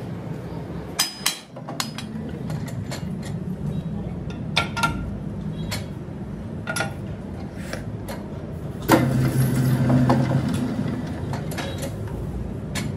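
Scattered metal clanks and knocks as a steel wheel-rim blank is fitted into a lathe chuck and the chuck jaws are worked with a chuck key, over a steady low hum. A louder clank comes about nine seconds in, followed by a short low hum.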